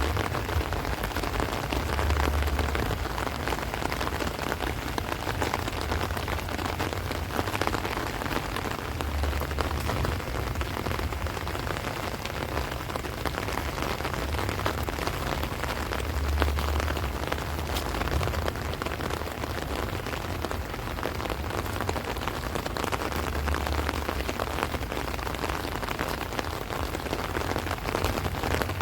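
Heavy rain falling steadily on rice plants and trees, a dense, even patter, with a low rumble that swells about every seven seconds.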